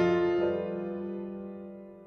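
Background piano music: one chord struck at the start and left to fade.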